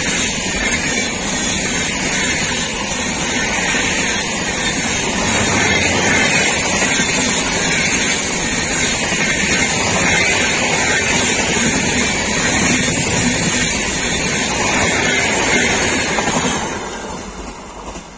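Rajdhani Express LHB passenger coaches rushing past at about 130 km/h: a loud, steady rush of wheels on rail and air that dies away near the end.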